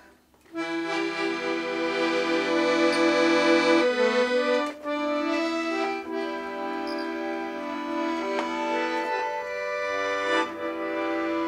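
Bayan (chromatic button accordion) playing alone: held chords and a melody over sustained bass notes, starting about half a second in, with a brief dip in loudness near the middle.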